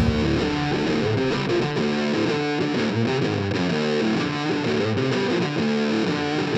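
Background rock music: an electric guitar with distortion playing a run of quickly changing picked notes.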